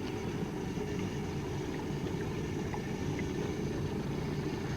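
Boat's outboard motor running steadily at trolling speed: a low, even rumble with a faint hum above it.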